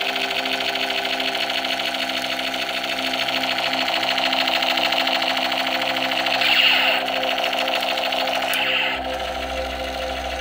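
Battery-powered light-up toy Desert Eagle pistol running its electronic firing effect: a fast, steady mechanical rattle, with background music beneath it.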